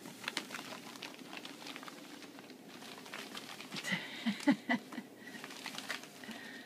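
Ferrets scrambling through a clear, ribbed plastic play tube, their claws pattering and scraping on the plastic in quick irregular clicks. A few louder knocks come in a quick run about four and a half seconds in.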